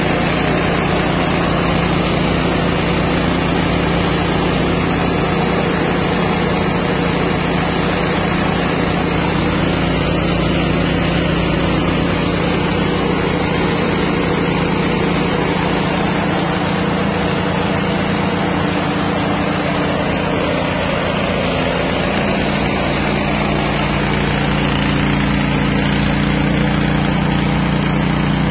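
Small rice milling machine running steadily under its 6.5 hp engine, hulling and polishing paddy into milled rice.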